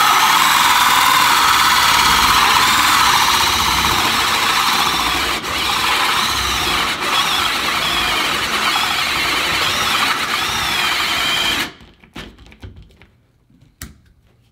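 Cordless drill driving a Bosch multi-blade hole saw through a wooden board, running under heavy load with a high, wavering squeal, then stopping about twelve seconds in. The load is enough to make the drill smoke.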